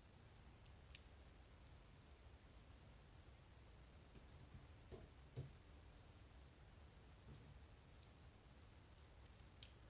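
A few faint, scattered metallic clicks from a dimple lock cylinder being worked on as its pins are taken out, over near silence, the loudest about five and a half seconds in.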